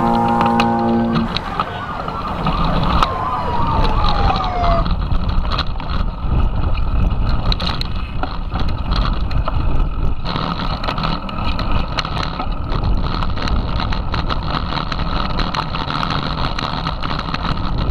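Mountain bike ridden fast over a rough, rocky dirt trail, heard from a camera mounted on the bike: steady low rumble and wind on the microphone, with constant rattling and clicking from the bike jolting over stones. A guitar music track ends about a second in, and a high tone slides steadily downward over the next few seconds.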